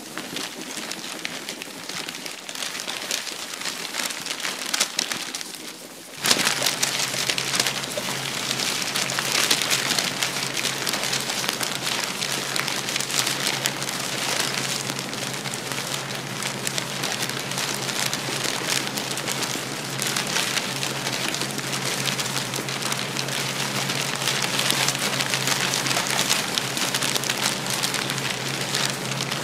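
Television static: a steady hiss that jumps suddenly louder about six seconds in, joined by a steady low electrical hum.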